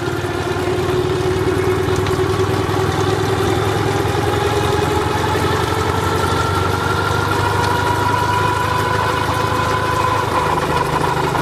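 Half-scale Foden steam lorry replica under way: its steam engine and drivetrain running steadily, with a whine that rises slowly in pitch and then levels off.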